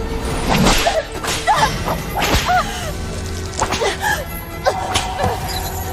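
Whip lashes striking about five times, a woman crying out in pain after the blows, over dramatic background music.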